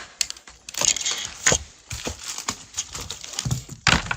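Close rustling with sharp clicks and taps of a wallet and paper money being handled, as foreign banknotes are moved from a paper bank envelope into the wallet. It is loudest about a second in and again near the end.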